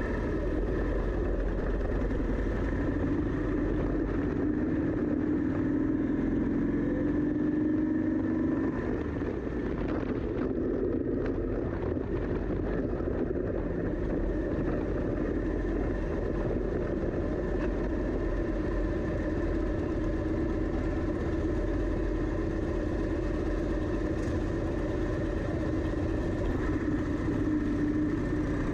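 Motorcycle engine running steadily while riding, a continuous low drone with a slight rise in pitch partway through.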